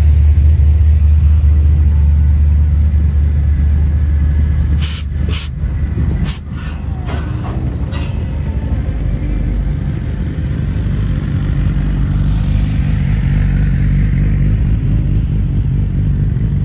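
Car engine running with a deep rumble that eases off about four seconds in, followed by a few short sharp sounds around five to six seconds in.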